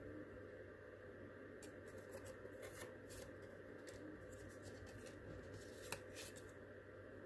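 Faint rustling and light ticks of cardstock pieces and paper tags being handled and lifted, with one sharper tick about six seconds in, over a steady low hum.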